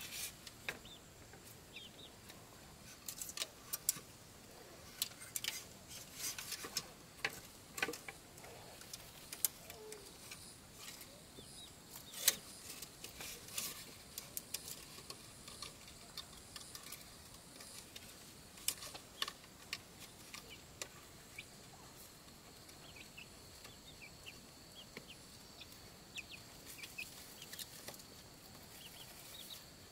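Chickens clucking softly, among scattered sharp clicks and taps; a faint steady high whine comes in during the second half.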